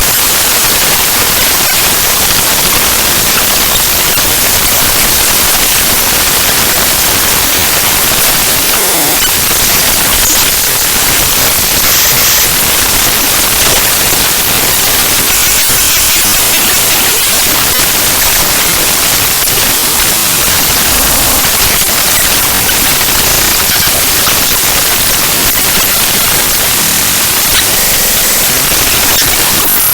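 The raw bytes of the ffmpeg.exe program file played back as audio: loud, steady, harsh static with little pattern, the hiss strongest in the treble.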